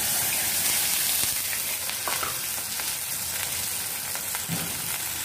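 Milk poured into hot ghee in an aluminium kadhai, sizzling and spitting. It starts strongest as the milk hits the fat and settles a little as it spreads.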